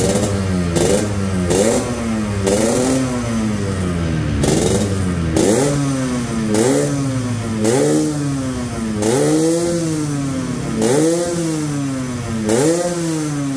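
Yamaha RX-King's two-stroke single-cylinder engine being blipped about ten times, each rev rising and falling back. It runs through a hollowed-out stock muffler that has been rebuilt with two new baffles to sound close to original: not noisy, soft, with a crisp rasp at the low end.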